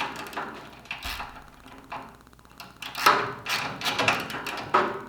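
Hand tools working on metal during bolting: irregular clicks, taps and knocks, sparse in the middle and coming quickly in the last two seconds.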